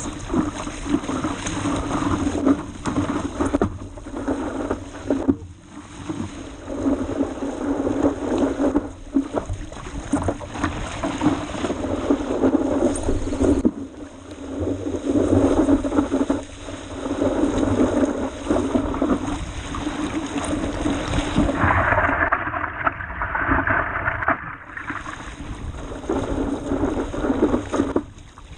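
Rushing wind and water as a 12'6" stand-up paddleboard runs downwind over ocean chop, heard from a camera on the board's nose, swelling and dipping every few seconds with the paddle strokes and the waves. About three quarters through, a few seconds of brighter, hissing spray.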